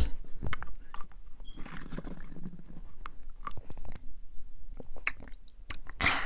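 Milkshake sucked up through a straw, close to a clip-on microphone: a run of many small wet clicks and sucking noises.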